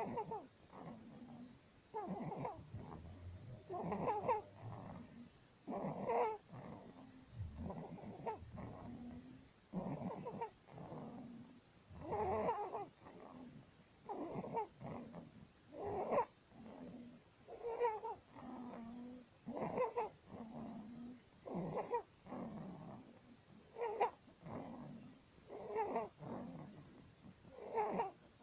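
A newborn baby's noisy breathing with stridor, the crowing, squeaky breath sound of laryngomalacia, where floppy tissue above the voice box narrows the airway. It repeats evenly, a loud pitched rasp about every two seconds with softer, lower breath sounds between.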